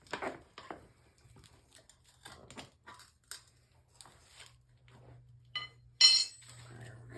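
Steel tire irons clicking and clinking against a dirt bike's wheel rim as the tire bead is levered over in small bites, with a louder ringing metal clink about six seconds in.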